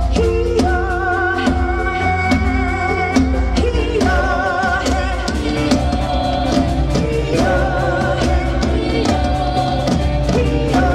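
Music: a song with held, wavering sung notes over a steady beat and deep bass.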